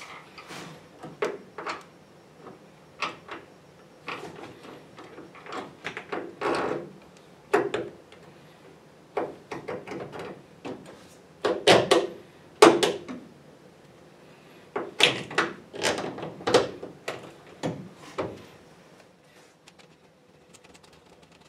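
Irregular clicks, clunks and rattles of a chrome tail light bezel and lens assembly knocking against the car's sheet-metal rear panel as it is worked by hand into a snug-fitting opening. The loudest knocks come about twelve seconds in.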